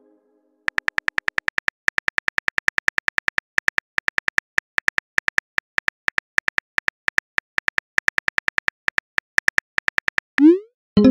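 Phone keyboard key clicks, about ten a second in quick runs with short pauses, as a text message is typed out. Near the end a short rising whoosh as the message is sent.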